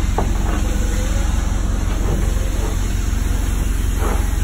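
Boat engine running steadily at low speed, a deep even throb.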